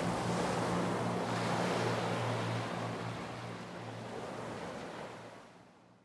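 Sea waves washing and lapping, a steady rush of water with a low steady hum beneath it, fading out over the last few seconds.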